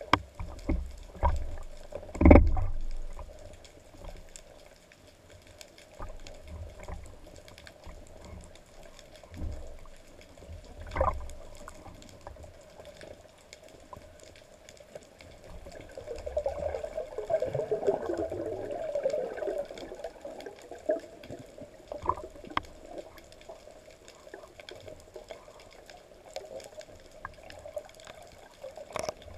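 Water sloshing and gurgling around a speargun-mounted camera just below the surface. There are several dull knocks in the first few seconds, the loudest about two seconds in, and a louder gurgling stretch about 16 to 20 seconds in.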